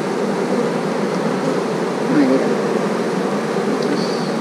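Steady buzzing of a crowd of honey bees on and around a frame lifted out of an open hive.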